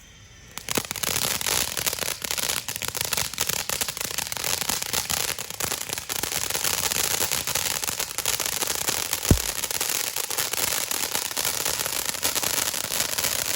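Galactic Stardust consumer firework fountain catching about half a second in and spraying steadily with a dense crackling hiss. Twice, a brief falling tone cuts through it.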